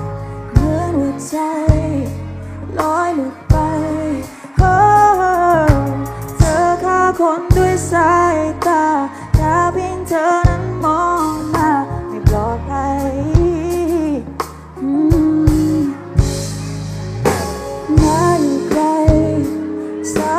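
Background music: a song with a woman singing a slow melody over instrumental backing with a steady beat.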